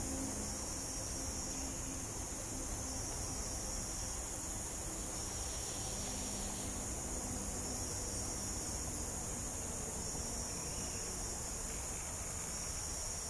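Rainforest insect chorus: a steady high-pitched shrill drone, with one insect's trill coming in bursts of about a second, repeating roughly every two seconds.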